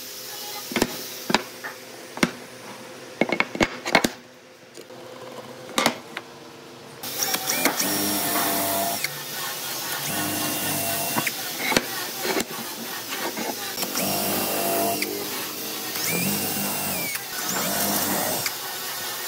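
Sharp knocks of wooden boards being handled and set down on a workbench, then a cordless drill running into the edge of a wooden board in several runs, its motor whine rising as each run starts and dropping as it stops.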